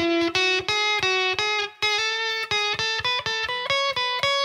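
Fender Telecaster electric guitar playing a scale in threes: quick single notes, about five a second, climbing step by step in overlapping groups of three notes (1-2-3, 2-3-4, 3-4-5 and so on).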